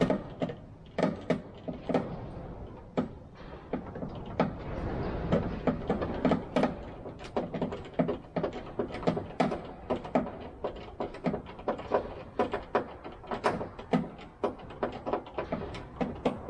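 A hand screwdriver driving machine screws into brass threaded inserts in a wooden floorboard, giving quick, irregular clicks and light knocks.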